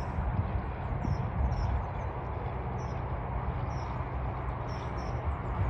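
Small birds chirping, with short high calls repeating every half-second or so, over a steady low rumble.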